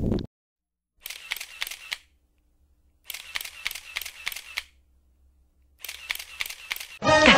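Camera shutter clicking in three short bursts of rapid clicks, with dead silence between them. Music starts just before the end.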